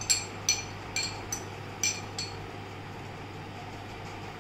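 Spoon scraping chopped onion out of a small glass bowl, clinking against the glass about six times in the first two seconds; after that only a faint steady hum.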